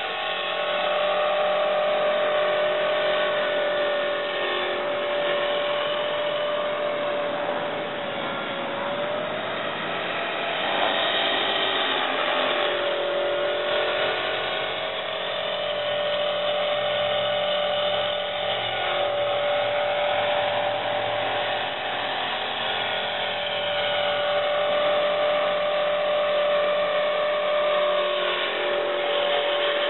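Electric 450-size RC helicopter (Exceed Blue Ray 450) running in flight, a steady high motor and rotor whine that sags briefly in pitch a couple of times before steadying again.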